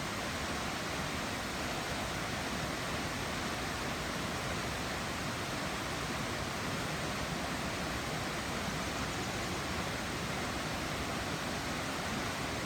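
South Falls, a 177-foot waterfall, pouring steadily: an even, unbroken rush of falling water.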